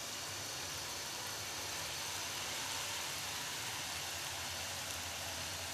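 Steady sizzle of tomato-onion masala frying in a wok, with pre-fried minced meat just added on top.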